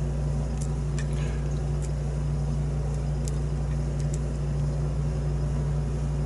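Steady low machine hum with a few faint, sharp ticks from a lock pick working the pins of a challenge lock.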